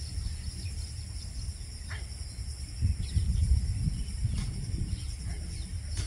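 Steady, high-pitched insect chorus over a low rumble, with a few faint, short bird calls.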